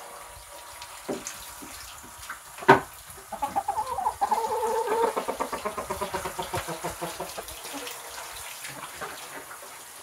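A hen clucking in a quick run of short notes for about four seconds, over the faint hiss of a garden hose filling a plastic poultry waterer. A single sharp knock comes shortly before the clucking starts.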